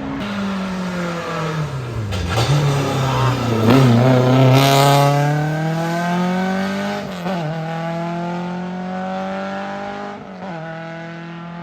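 Race car engine at full throttle on a hillclimb: its note sinks to a low about two seconds in, then climbs hard through the gears, with sharp drops at upshifts about seven and ten seconds in, loudest around four to five seconds in.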